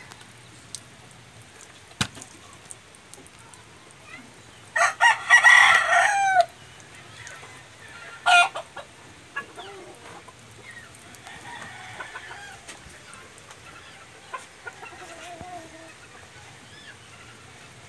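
A rooster crowing: one loud call of about a second and a half around five seconds in, then a short call near eight seconds. Fainter chicken calls follow later, and there is a single sharp click about two seconds in.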